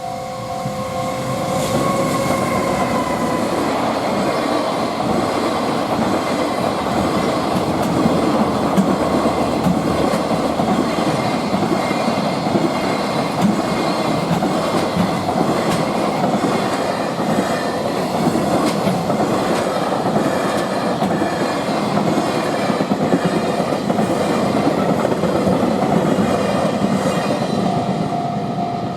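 Freight train passing close by at speed, its wagons' wheels clattering over the rail joints for about 25 seconds before the sound eases off near the end.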